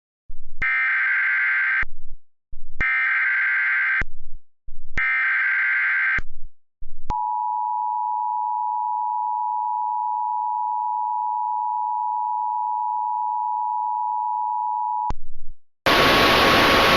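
Emergency Alert System tones: three bursts of SAME header data, each a harsh digital warble about a second long. About seven seconds in comes the two-tone EAS attention signal, held steady for about eight seconds. Near the end a steady hiss starts.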